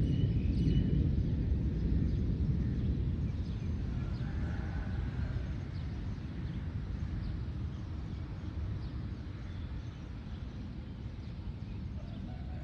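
A low rumble of thunder rolling away and slowly fading, with faint bird chirps above it.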